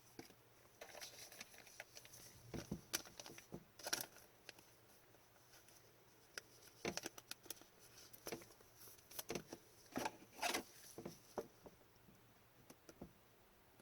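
Upper Deck hockey cards being handled and flipped through: scattered light clicks, taps and slides of card stock, busiest from about two and a half to four seconds in and again from about nine to eleven and a half.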